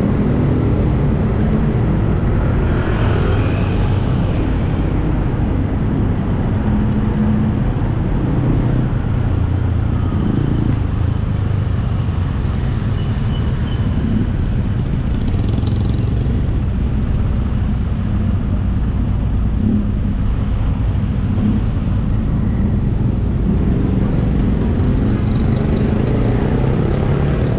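Dense city street traffic heard at close range: motorbike, car and tuk-tuk engines running and passing in slow traffic, a continuous low engine hum.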